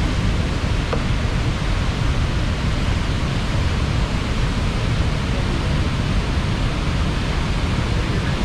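Large waterfall in heavy flow, a steady, dense rushing of falling water, heaviest in the low range.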